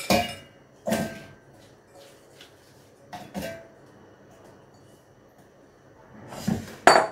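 Clinks and knocks of a stainless-steel mixer jar and a glass bowl as chopped apple pieces are put into the jar: a few separate sharp clinks with a short metallic ring, and the loudest knock near the end as the glass bowl is set down on the counter.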